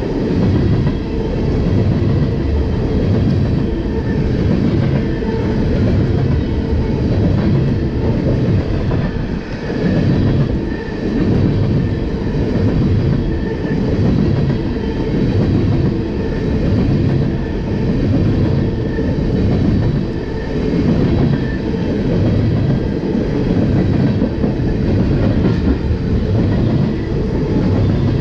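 A freight train of empty tank cars rolling past, the wheels clattering over the rail joints in a regular rhythm, about one clatter every second and a half.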